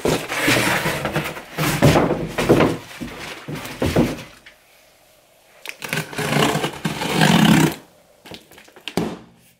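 Close handling noise as a cardboard shipping box and the camera are moved about: rubbing, scraping and dull thumps in two main stretches, with a brief bump near the end.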